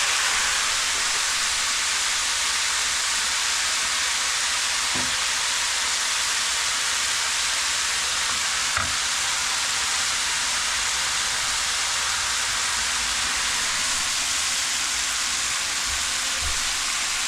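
Chicken pieces frying in hot oil in a pan: a steady sizzling hiss, with a couple of light knocks.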